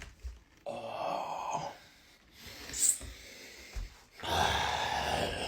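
A person breathing heavily: two long, noisy breaths, the second starting about four seconds in.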